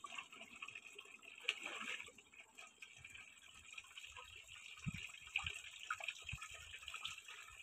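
Water poured from a plastic jerry can into the open end of a tube-well pump pipe, trickling and splashing down into a brick channel below. This is the priming of the pump before the engine is started. A couple of dull knocks come a little past the middle.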